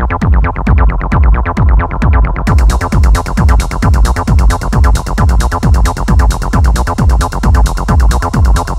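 Techno track: a steady kick drum at about two beats a second under synthesizer layers, with a high hi-hat and noise layer coming in about two and a half seconds in.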